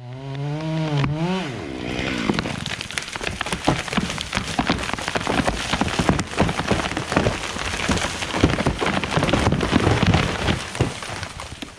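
A big old man pine falling: after a short pitched drone that rises and dies away, a long run of dense cracking, snapping and rustling as the trunk leans over and crashes down through its branches.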